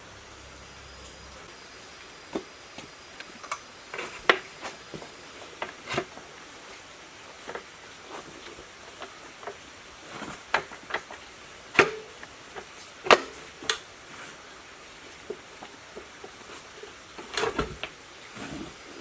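Irregular light knocks and clinks of hard objects being handled, as in workshop hand work with tools and parts, with a few sharper strikes and a short cluster of them near the end.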